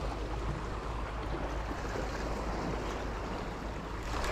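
Steady wash of sea surf on the shore, with wind rumbling on the microphone.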